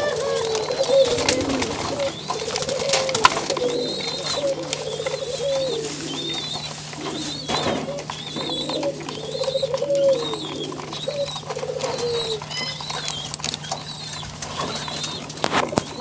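Barbary doves (ringneck doves) cooing over and over, one phrase after another. Through it runs a higher short call repeating about once a second, with scattered sharp clicks as the doves peck seed from a plastic cup.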